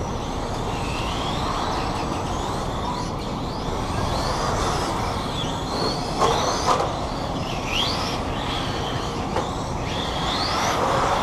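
Electric radio-controlled cars lapping a track, their motors whining up and falling back in pitch again and again as they accelerate and brake, over a steady rush of noise. Two short knocks a little after the middle.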